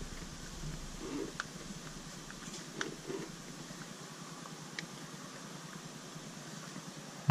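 Faint scattered clicks and scuffs of a hand screwing a spin-on oil filter onto its base, the filter being hand-tightened.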